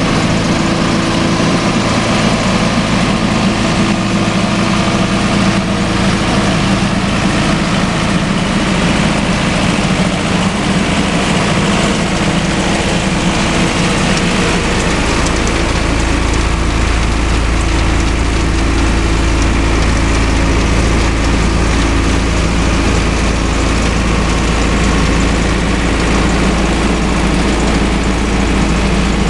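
Tractor-towed road vacuum sweeper at work: a steady diesel-type engine running under the continuous rush of the machine and its spinning side brush scrubbing grit along the curb. About halfway through, the low rumble gets noticeably stronger.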